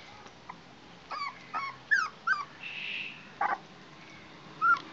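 Young puppy whimpering: a run of short, high whines starting about a second in, then a couple more near the end.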